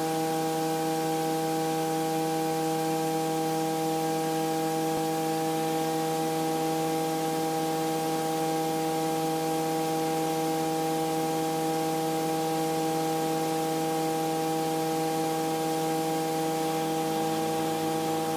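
Steady hum with a row of overtones on a light aircraft's cockpit audio feed, holding one pitch and level throughout, as the biplane waits on the runway with its propeller turning.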